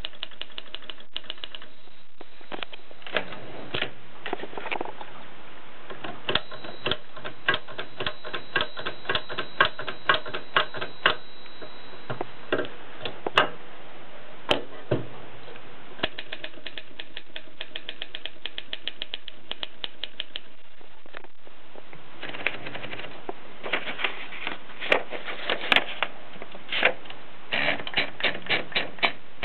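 Voss Special typewriter being typed on: quick runs of sharp key strikes in bursts, broken by short pauses.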